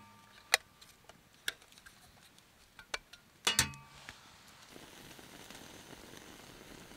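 Small hard objects being handled: a few sharp clicks, then a louder clink with a brief metallic ring about three and a half seconds in. After that, a soft steady hiss sets in.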